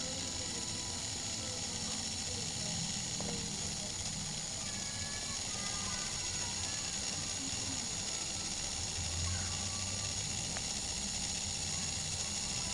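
Homemade rotary subwoofer running: its small DC motor spins with a steady high whine and hiss over low bass rumble from a movie explosion soundtrack, which swells about nine seconds in.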